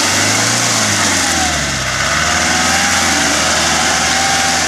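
Short-wheelbase Land Rover Defender engine working under load as it drives through deep mud, the revs rising and falling, with a higher whine that rises and falls with it.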